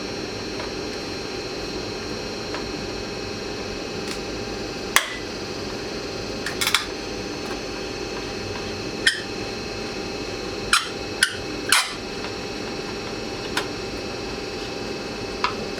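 Scattered short clicks and clinks of hand tools and small screws as the last screws are taken out of a Jeep Cherokee XJ's chrome headlight trim ring. A cluster of three clinks comes a little past the middle, over a steady background hum.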